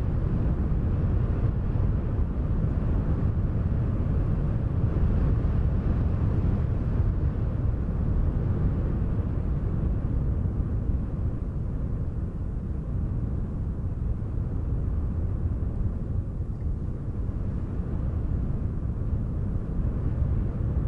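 Steady low wind rumble, a deep whooshing that swells and eases slightly without stopping.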